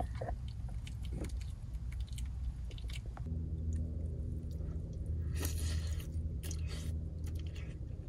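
A person eating noodle soup with chopsticks: chewing, with scattered short clicks and scrapes. A low steady hum comes in about three seconds in.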